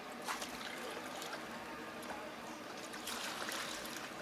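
Water splashing and trickling around a small inflatable dinghy as it is rowed away from a pontoon, with a light knock near the start.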